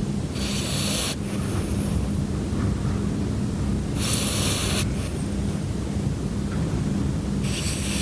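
Mameshiba puppy snoring in its sleep: three airy, breathy snores about three and a half seconds apart, each a stronger breath followed by a fainter one, over a steady low hum.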